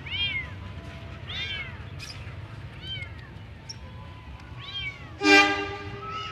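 A caged domestic cat meowing repeatedly: four rising-and-falling meows about a second and a half apart. About five seconds in, a louder, short, steady-pitched sound stands out above the meows.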